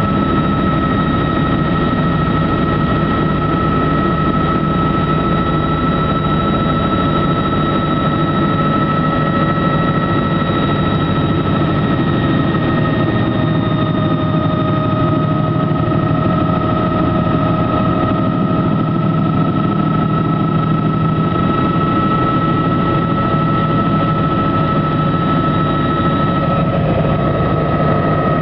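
Helicopter in flight heard from on board: a loud, steady engine and rotor drone with a constant high whine.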